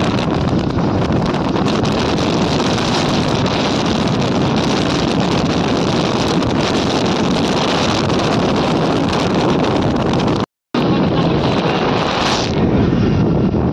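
Wind buffeting the microphone over the steady rumble of a vehicle travelling along a road. The sound drops out for a moment about ten seconds in, then carries on slightly duller.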